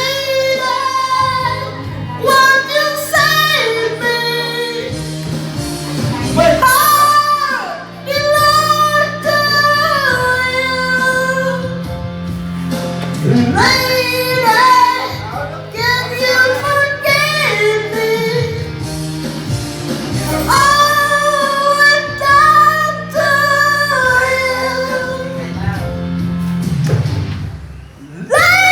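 A song playing: singing over musical accompaniment with a steady bass line.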